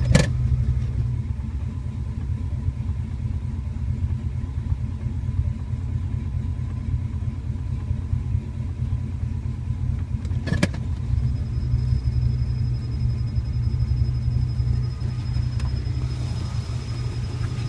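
1981 Pontiac Turbo Trans Am's turbocharged 301 V8 idling warm in gear with a steady, pulsing low drone: a rough idle that the owner says shakes the whole car. Two short clicks, one just at the start and one about ten seconds in.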